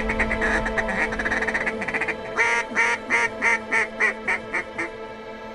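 Duck quacking: a fast run of quacks, then from about two seconds in a series of about ten evenly spaced quacks that grow fainter and stop shortly before the end.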